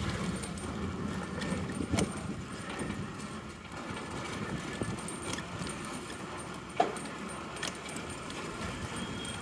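Street noise heard from a moving rickshaw: a steady low rumble of road and traffic with scattered light clicks and knocks, the sharpest one about seven seconds in.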